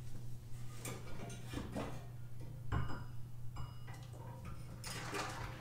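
Scattered light metallic clicks and knocks of rear suspension parts being handled, the sharpest knock near the middle, over a steady low hum.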